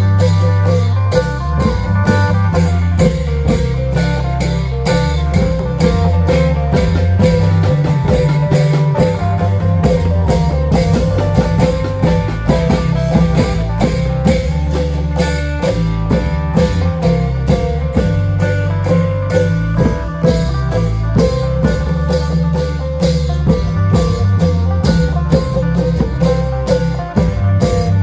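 Isan klong yao long-drum band playing: dense, driving drumming over steady bass notes, with a plucked-string melody on top.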